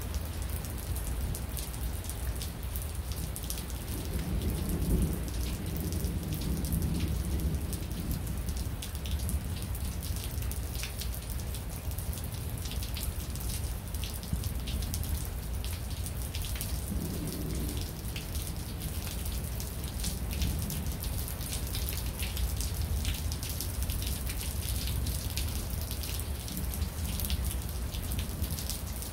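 Steady rain during a thunderstorm, with many close drops ticking. Low rumbles of thunder swell twice, a few seconds in and again about halfway through.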